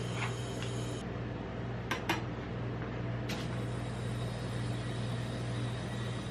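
Metal spatula scraping along a steel ice cream roll cold plate as it pushes under a strip of frozen ice cream and rolls it up, with a few short sharp scrapes, two of them close together about two seconds in. A steady low hum runs underneath.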